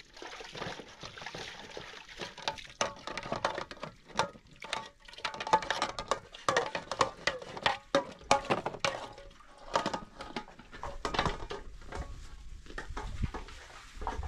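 Hand-washing metal dishes under a water-tank tap: water running and splashing into a metal bowl, with repeated clinks and knocks of metal bowls and pots, some ringing briefly.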